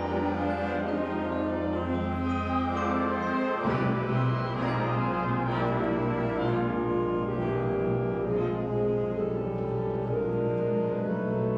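High school wind ensemble playing sustained chords, with brass prominent; the bass line moves to a new note about three and a half seconds in.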